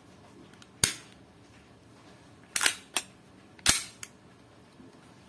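Sharp metallic clicks and snaps from a WE Glock 18C Gen 3 airsoft pistol's slide and mechanism being worked by hand: one snap about a second in, then a quick run of four or five more near the middle.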